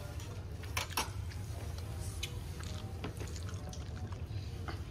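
Scattered soft clinks and taps of spoons and fingers on serving platters as people eat, over a steady low hum.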